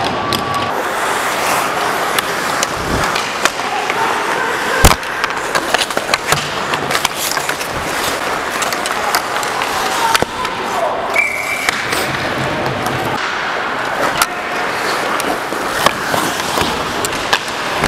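Ice hockey skates scraping and carving across the ice close by, with sharp clacks and knocks from sticks and puck throughout. The loudest knock comes about five seconds in.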